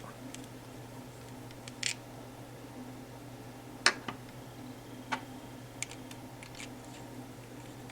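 Scattered clicks and taps from small e-cigarette parts and their packaging being handled, the sharpest click about four seconds in, over a steady low hum.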